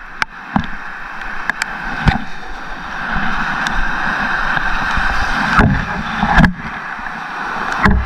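Sea water sloshing and lapping around a wading angler, a steady wash of surf close to the microphone. It is broken by several sharp knocks and bumps from handling, the loudest two about five and a half and six and a half seconds in.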